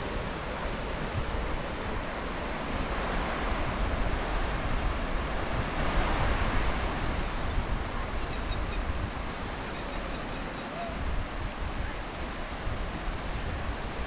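Surf washing onto a sandy beach, with wind rumbling on the microphone; the wash swells about six seconds in.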